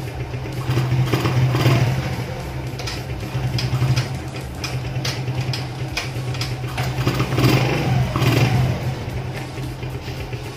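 Small single-cylinder motorcycle engine idling steadily, with background music and its beat over it.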